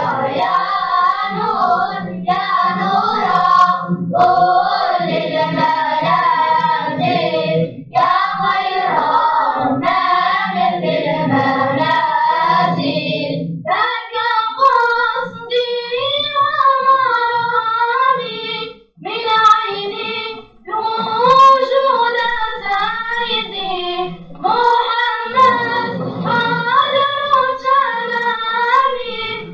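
Children's vocal group singing a devotional chant together, in phrases broken by short breaths and a brief pause a little after halfway.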